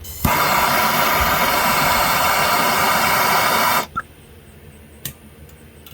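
Loud steady hiss from a heating tool, reheating a battery cable terminal for soldering; it starts abruptly about a quarter second in and cuts off just before four seconds.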